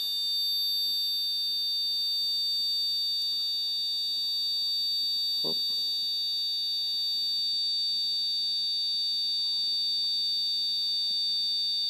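Piezo transducer driven by a square wave from a phone tone-generator app, giving off a steady high-pitched tone with higher overtones. There is one faint knock about halfway through.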